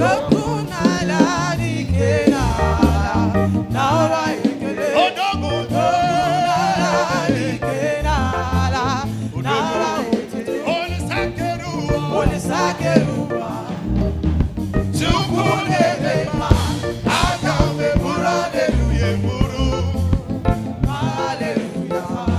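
Live gospel praise music: a band with a steady bass-and-drum beat and guitar, with wordless or unrecognised singing over it.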